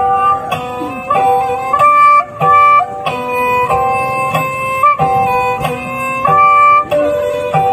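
Sundanese tarawangsa music: a bowed tarawangsa fiddle playing a melody of held notes that step from pitch to pitch every half second or so, over plucked strings.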